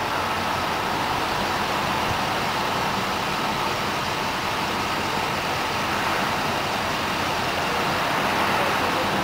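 Engine of a supercharged, hydrogen-fuelled Chevy Silverado pickup running steadily at low speed, an even drone without changes in pitch.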